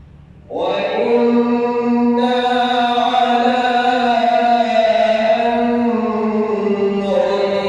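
Male reciter chanting the Quran in melodic tajweed style, starting about half a second in and holding long, slowly gliding drawn-out notes.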